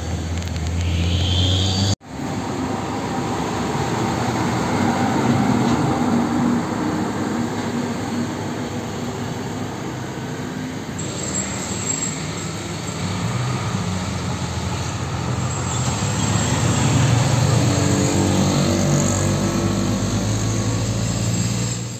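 Road traffic of diesel cargo trucks and motorcycles driving past, with a steady engine drone and road noise. The sound drops out for an instant about two seconds in. It swells as a truck passes close near the end.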